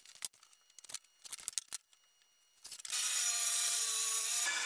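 A few light clicks and taps of a tape measure and square being handled on plywood. About three seconds in, a DeWalt 20V MAX cordless circular saw starts up and runs with a whine that rises slightly as it spins up. Just before the end its sound changes as the blade starts into the 3/4-inch plywood sheet.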